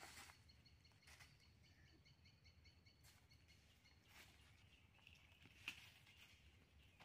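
Near silence with a faint, rapidly repeated high bird call for the first few seconds, and a few soft rustles of dry leaves.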